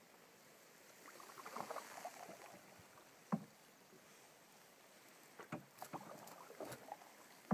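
Canoe on calm water, quiet: a soft swish of water about a second in, then a few light knocks and drips of the paddle and hull.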